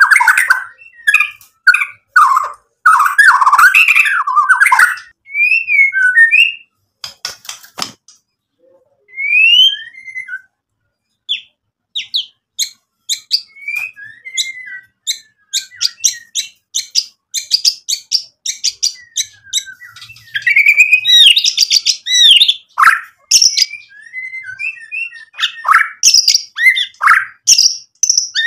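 White-rumped shama singing a long, varied song of whistled phrases, rising and falling notes and rapid harsh rattles. The song thins to a few separate notes for several seconds about a third of the way in, then resumes dense.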